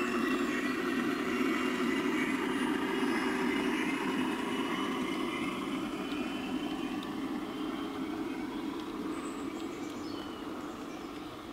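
G-scale model train rolling past on garden railway track, a steady running noise of its wheels and motor that grows fainter over the second half as the last wagons go by.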